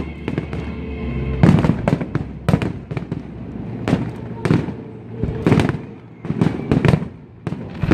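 Aerial fireworks shells bursting in a rapid, irregular series of sharp bangs, with music playing underneath.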